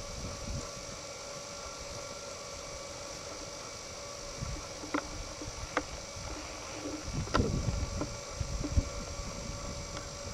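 Uneven wind rumble on the microphone over a steady hum and hiss, with a few faint sharp clicks around the middle.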